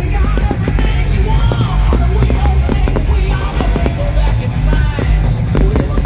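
Loud rock music with a heavy bass beat and vocals, played over a show sound system.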